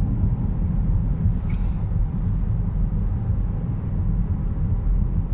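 Steady low road rumble inside a moving car's cabin: tyres running on a wet, slushy highway, with engine drone underneath.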